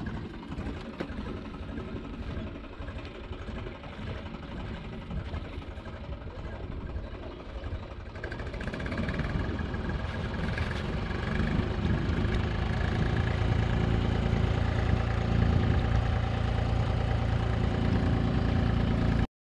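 An engine running, getting louder and steadier from about halfway through, then cutting off suddenly near the end.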